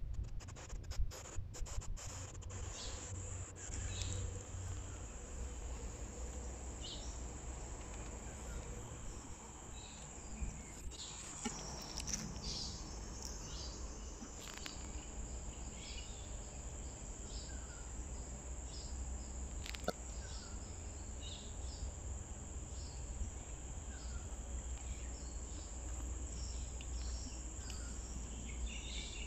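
Steady high-pitched insect drone, with short bird chirps scattered throughout and a low rumble underneath. A few sharp clicks come in the first couple of seconds.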